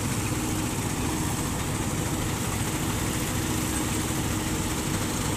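Heavy diesel engines running steadily at close range: a Vögele asphalt paver laying asphalt, with a tipper truck's engine alongside. There is a constant low drone with a faint steady hum and no change in speed.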